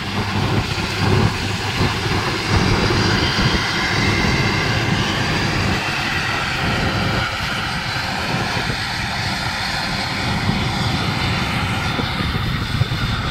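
FMWorld WD115 Pro tracked rice combine harvester running under load as it cuts and threshes lodged rice: a steady engine drone over dense mechanical noise.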